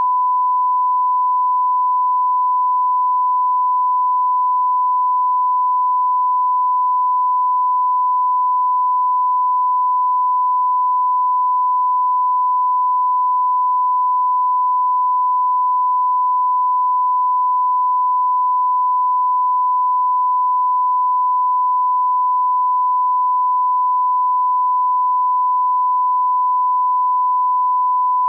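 Colour-bar line-up tone: a steady, unbroken pure test tone at about 1 kHz.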